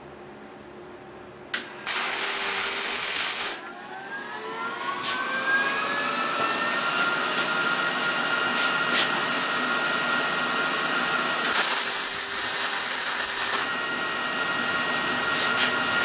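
Arc welder striking two tack welds on steel frame stock: two loud sizzling bursts of about two seconds each, roughly ten seconds apart. After the first, a motor whine rises in pitch over a few seconds and then holds steady, with a few light clicks.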